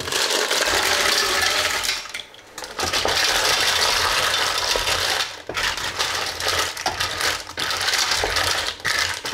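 Fresh mussels in their shells clattering against one another and against a stainless-steel cocotte as they are tipped in and stirred with a wooden spoon, a dense rattling with a short pause about two seconds in.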